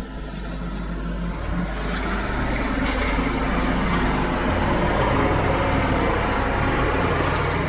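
Engine running steadily, growing louder over the first two to three seconds and then holding level.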